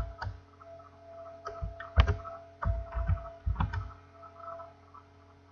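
Computer keyboard keystrokes: about ten short clicks in the first four seconds, over a faint steady hum.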